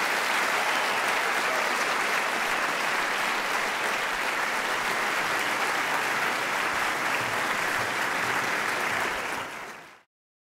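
A large theatre audience applauding steadily, a dense even clatter of many hands, fading out near the end.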